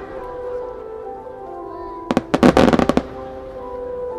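Aerial firework shell's stars crackling: a quick cluster of sharp cracks about two seconds in, lasting about a second, over sustained background music.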